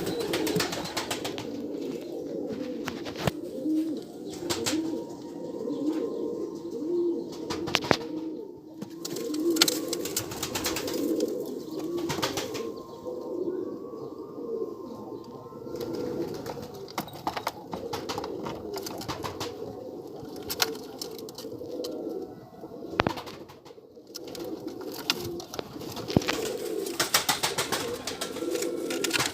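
Several pigeons cooing together without pause, with scattered short clicks and wing flutters.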